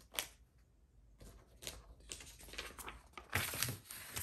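Sheets of paper pattern being handled and slid over a cutting mat: a string of faint, irregular rustles and light taps, the loudest a little before the end.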